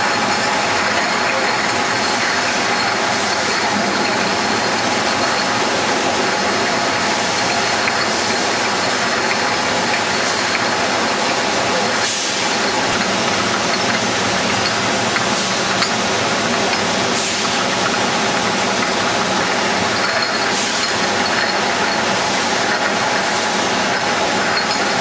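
Glass soft-drink bottles clinking and rattling against each other and the guide rails as they ride a running conveyor on a high-speed bottling line. A loud, steady clatter.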